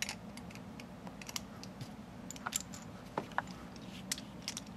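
Light scattered clicks and taps of a Beyblade's metal wheel and plastic clear wheel being handled and fitted together, with a few brief metallic pings near the middle.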